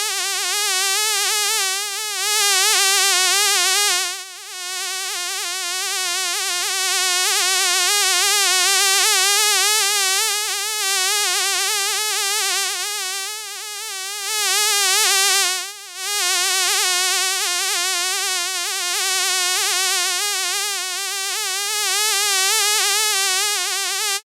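A fly buzzing in a continuous, high droning hum whose pitch wavers rapidly up and down, swelling louder and fading back several times, with two brief dips, then cutting off suddenly near the end.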